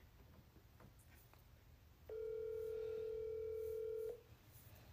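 Telephone ringback tone from a mobile phone on speakerphone: one steady ring about two seconds long, starting about two seconds in, while the outgoing call waits to be answered.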